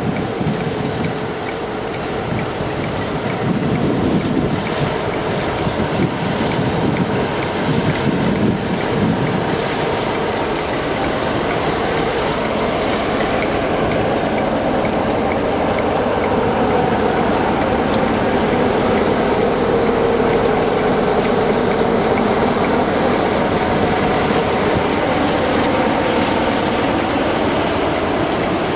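A locomotive-hauled passenger train's coaches rolling past, wheels running continuously on the rails with some clatter. The noise builds steadily through the second half as the rear locomotive, class 47 No. 47580, draws near.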